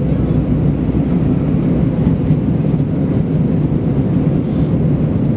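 Steady cabin drone of an Airbus A320 in its climb after take-off: engine and airflow noise heard from inside the cabin, with a faint steady hum.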